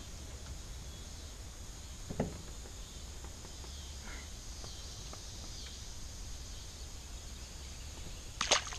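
Quiet outdoor pond ambience: a faint steady hiss over a low rumble, with a soft knock about two seconds in and a sharper, louder knock near the end.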